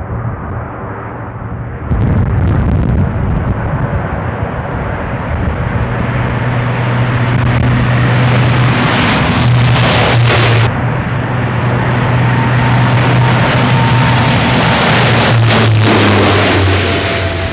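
Lockheed Martin C-130J Super Hercules turboprops running loud as the aircraft rolls down the runway and lifts off: a steady propeller drone with a low hum underneath. The sound jumps abruptly about two seconds in and again about ten seconds in as the shots change.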